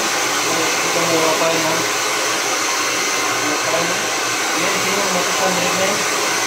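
Handheld hair blow dryer running steadily close by: a constant rushing of air with a thin, steady high whine.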